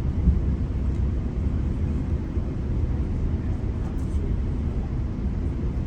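GO Transit commuter train running between stations: a steady low rumble of the train in motion on the rails.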